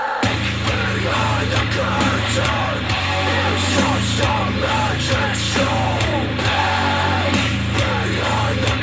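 Loud rock music with a heavy beat and vocals, played back through a JBL Flip 6 portable Bluetooth speaker. The bass drops out for a moment right at the start, then the song carries on at full level.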